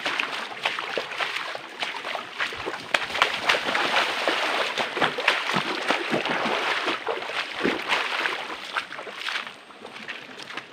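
Shallow creek water sloshing and splashing around someone wading through it, with irregular splashes and knocks. It gets quieter near the end.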